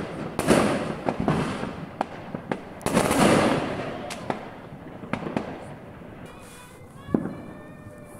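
Fireworks going off: loud bangs with long crackling tails, one right at the start and a bigger one about three seconds in, with scattered pops and crackles between, thinning out to quieter pops toward the end.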